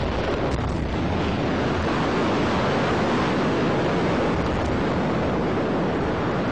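A steady loud rushing noise with no separate bangs: wind and handling noise buffeting the microphone of a handheld camera on the move.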